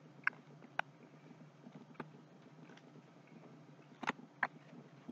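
Mouth sounds of someone chewing a chocolate-covered mini donut: a few soft, separate clicks and lip smacks, with a short crinkle of the plastic donut bag about four seconds in.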